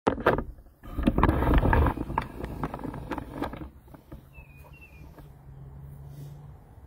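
Phone microphone rubbed and knocked in the hand as the camera is moved about, loud rustling and clicks for the first few seconds. After that a faint steady low hum remains, and a bird gives two short falling chirps.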